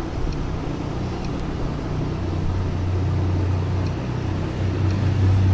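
Steady background rumble and hiss with a low hum that grows louder about two seconds in.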